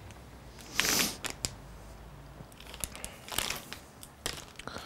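Thin plastic bag crinkling as it is handled, in short rustling bursts about a second in and again past three seconds, with a few small clicks between.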